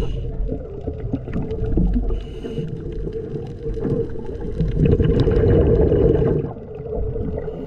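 Scuba diver's exhaled regulator bubbles gurgling and rumbling underwater over a steady droning hum, the bubbles loudest from about five to six and a half seconds in.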